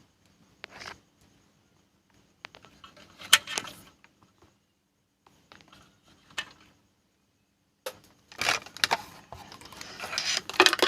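Small tools being handled on a repair bench: scattered light clicks and knocks, then a louder stretch of rubbing and scraping during the last few seconds.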